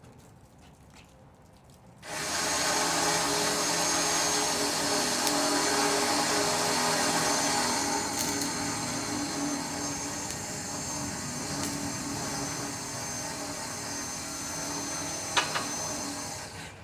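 Electric power tool motor running steadily for about fourteen seconds, with a high whine over a lower hum, starting about two seconds in and cutting off near the end. A single sharp click comes shortly before it stops.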